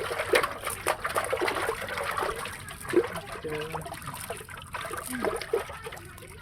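Water splashing and trickling, with many small splashes and ticks throughout.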